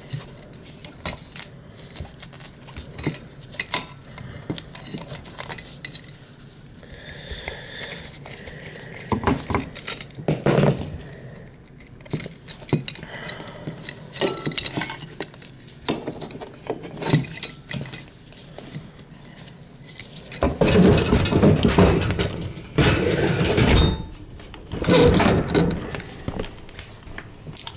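Metal clinks and rattles from handling the sheet-metal electrical junction box and wiring under a dishwasher, with scattered sharp clicks. About twenty seconds in, a louder, continuous clatter lasts a few seconds, then returns briefly.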